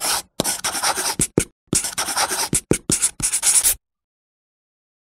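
A pen writing on paper in a quick series of short strokes with brief gaps between them, stopping just under four seconds in.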